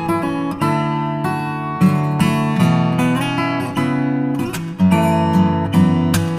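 Background music: acoustic guitar played with strummed chords.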